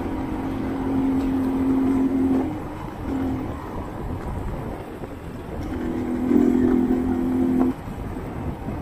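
Sport motorcycle engine running at a steady road speed under wind rush. Its steady note swells twice: through the first two and a half seconds, and again from about six to seven and a half seconds in.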